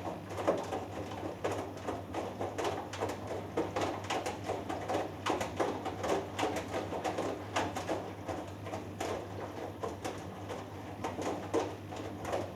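Hoover Dynamic Next DXA610IW3 washing machine in the wash phase of a cotton cycle: the drum turns a 3 kg load of laundry in water, giving irregular soft knocks and swishes over a steady motor hum.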